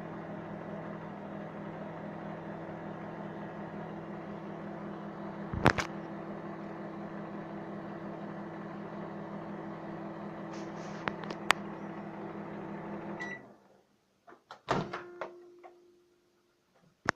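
Microwave oven running with a steady hum, with a few sharp clicks or pops during the run. It stops about 13 seconds in, followed by a few clicks and a knock with a short ringing tone that fades.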